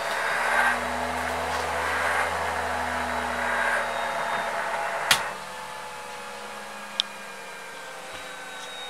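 Silent Partner tennis ball machine's launch-wheel motor running with a steady whine, its speed control working again after the faulty HEXFET transistors were replaced. About five seconds in there is a sharp click and the motor drops to a slower, quieter speed, its pitch sinking a little; another short click follows about two seconds later.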